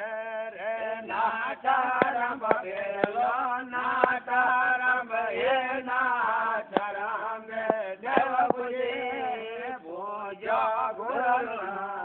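A man chanting in a melodic, wavering voice, holding long notes, with a few sharp clicks now and then.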